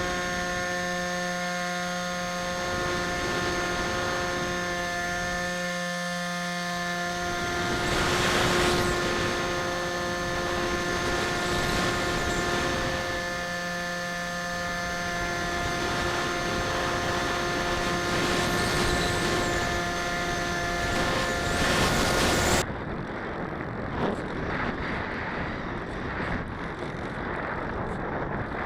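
Bixler 2 RC plane's brushless electric motor and pusher propeller whining at a steady pitch under power, cutting off suddenly about 22 seconds in as the throttle is closed. A rush of wind noise remains after the cut.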